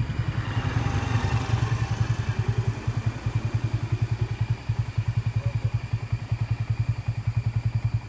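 Motorcycle engine idling close by: a steady low thudding at about ten beats a second.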